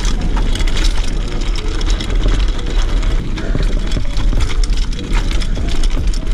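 Mountain bike descending a rocky dirt trail at speed: tyres rumbling over stones and the bike rattling, with a deep steady rumble underneath and frequent sharp clatters throughout.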